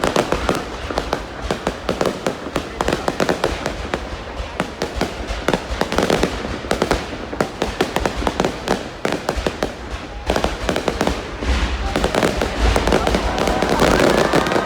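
Fireworks display: a dense, continuous stream of bangs and crackles over a low rumble, growing a little louder near the end.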